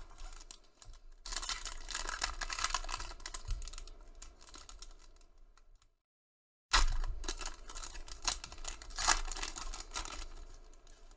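Shiny foil wrapper of a Panini Prizm basketball card pack crinkling and crackling as it is handled and torn open, then the cards sliding out. The sound drops to dead silence for under a second about six seconds in, then the crackling resumes loudly.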